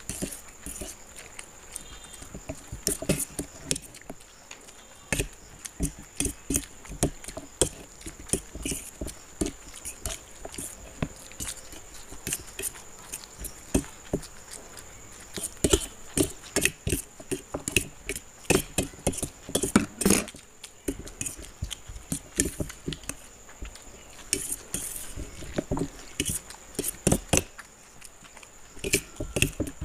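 Steel forks clinking and scraping on steel plates in quick, irregular clicks, mixed with noodles being slurped and chewed, during a chowmein eating race. A faint steady high whine runs underneath.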